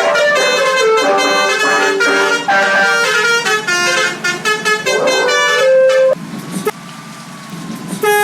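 Harapan Jaya bus's 'telolet' musical horn playing a quick tune of short, high-pitched notes that change several times a second, stopping about six seconds in. Then it is much quieter, and another short loud blast comes at the very end.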